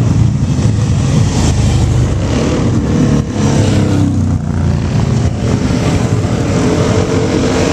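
Harley-Davidson V-twin motorcycles running as they ride past one after another at parade pace, the engine note shifting in pitch as each bike goes by.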